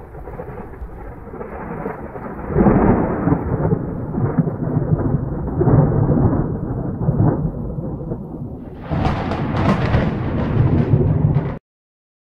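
Rolling thunder over steady rain, swelling in waves, with a louder, brighter peal about nine seconds in; it cuts off suddenly near the end.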